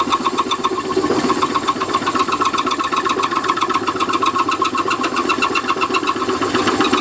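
A lathe running with a 20 mm milling cutter fed gently by hand through a part, with a fast, even pulsing over a steady whine. The cut is intermittent because the cutter is breaking through the far wall.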